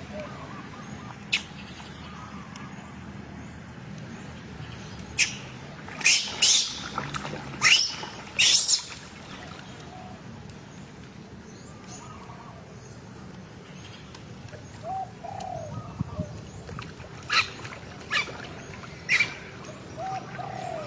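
Animal calls: short, sharp, high chirps, one about a second in, a cluster of five in the middle and three more near the end, with a few soft low coos in between.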